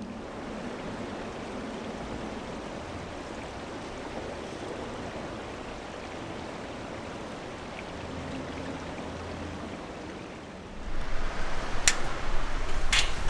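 Steady rush of flowing water from a stream. About eleven seconds in it gets much louder, with a deep rumble and a few sharp clicks.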